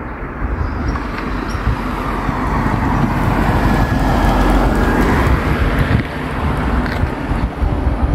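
An SUV passing close by on the road, its tyre and engine noise swelling to a peak about halfway through and then fading. Steady wind rumble on the microphone runs underneath.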